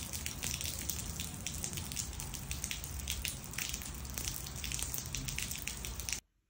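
Rain pouring down onto wet paving: a steady hiss with many close drips and splashes. It stops abruptly near the end.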